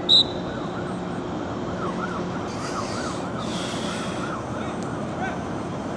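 An emergency-vehicle siren yelping, its pitch rising and falling about three times a second. A single short, sharp whistle blast, the loudest sound, comes right at the start.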